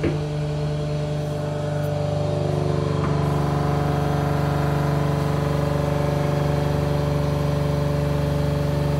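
12-volt Rainman desalinator's pump and motor running with a steady hum, loaded up as the high-pressure valve is slowly turned up. About two to three seconds in, its tones shift and it grows slightly louder as the pressure rises.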